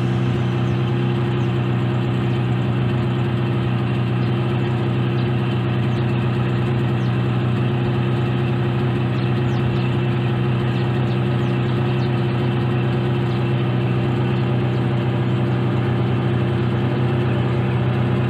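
Motorboat engine running steadily while the boat cruises, an even hum that holds one pitch.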